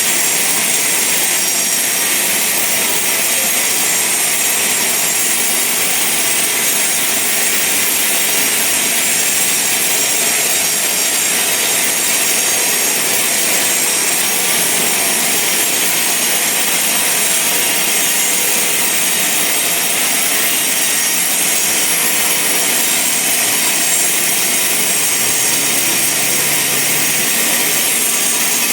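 Band sawmill cutting through a large log: a steady, loud, high hiss of the blade in the wood over the running machine, with no break.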